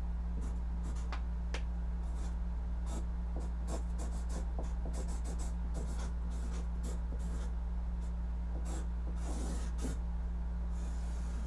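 A marker writing on a large sheet of paper taped to a wall: a run of short, scratchy strokes with brief pauses between them, over a steady low hum.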